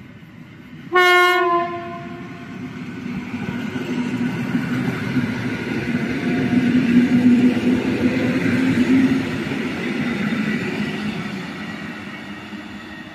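Regional electric multiple unit train sounds one short horn blast about a second in, then runs through the station without stopping. Its running noise builds to a peak midway and fades as it draws away.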